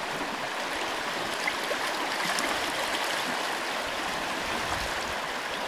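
Shallow river rippling past the bank: a steady, even rush of flowing water.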